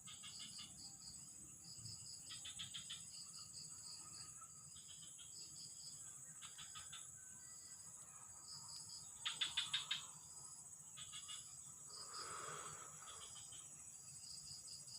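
Chorus of crickets and other insects: a steady high-pitched drone, short repeated chirps, and every second or two a quick train of rapid clicking pulses. A brief soft rustle comes about twelve seconds in.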